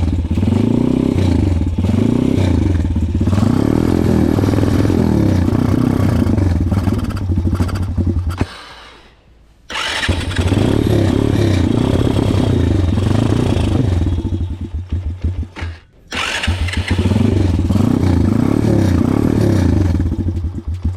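Small single-cylinder four-stroke pitbike engine, 140cc, running in uneven revs, dying out and being started again twice. It will not keep running, and the rider suspects the spark plug cap.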